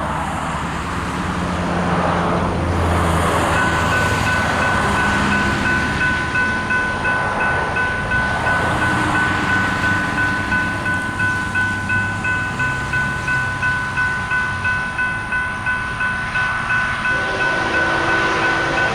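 Diesel-led freight train approaching with a low rumble, while a railroad crossing bell rings about twice a second from a few seconds in. Near the end the lead locomotive's K5LA air horn starts to sound.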